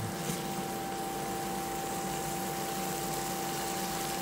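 Beef, asparagus and mushroom stir-fry sizzling in a stainless steel skillet, over a steady two-note hum from the portable cooktop, just turned up to a higher setting.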